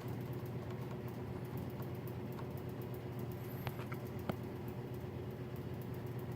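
Rapid light clicking of a Galaxy DX-959 CB radio's rotary channel selector being turned up through the channels, with a few sharper clicks about three and four seconds in, over a steady low hum.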